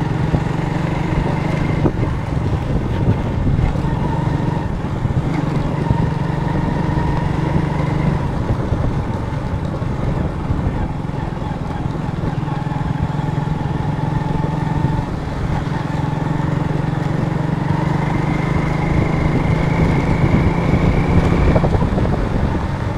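Motorcycle engine running steadily while riding a dirt track, over a low rumble of wind and road noise. The engine note climbs a little near the end.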